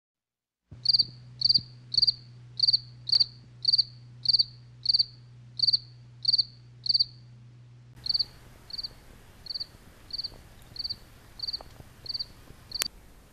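A cricket chirping at night: short, high chirps at an even pace of a little under two a second, over a low steady hum. The chirps turn softer about eight seconds in, and there is one sharp click near the end.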